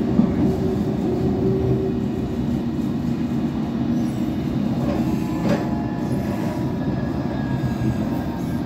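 Steady running rumble of a moving suburban electric train heard from inside the carriage, wheels rolling on the track. A brief click with a faint squeal comes about five and a half seconds in.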